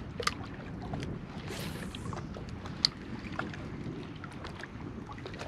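Water lapping around a kayak with light wind, plus small clicks and handling noises from a spinning rod and reel being cast. There is a brief hiss about a second and a half in and a sharp click near three seconds in.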